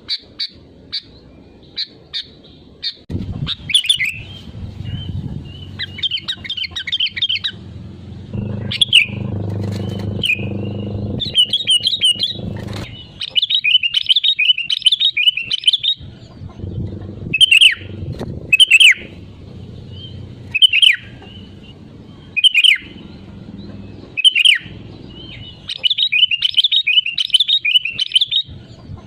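Sooty-headed bulbul (kutilang) singing continuously: short, bubbly phrases repeated every second or two, mixed with quick chattering runs. A low hum runs underneath for long stretches.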